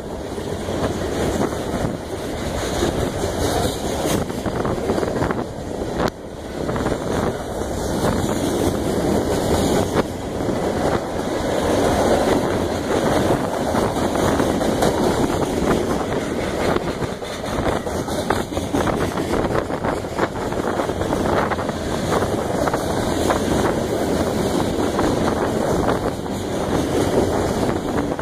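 Freight cars rolling past at close range, first centerbeam lumber flatcars and then covered hoppers: a steady, loud rumble of steel wheels on rail, with a constant run of small clicks and clatter.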